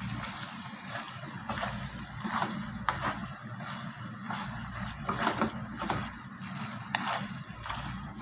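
Wooden spoon stirring and tossing sauce-coated penne with chicken in a nonstick pan: wet scrapes and squelches with an irregular stroke about every second, over a steady low hum.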